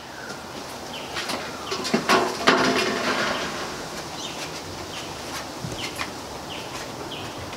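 White Swiss Shepherd puppies moving about in their wooden cubby: a burst of knocks and scuffling with a short pitched cry about two seconds in, and short high chirps now and then throughout.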